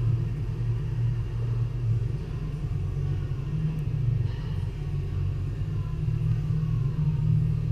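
Steady low background rumble, with no clear events.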